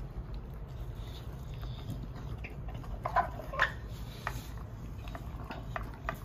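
American Bully dogs eating chunky food from a bowl: short, scattered chewing and crunching clicks, busiest about three to four seconds in.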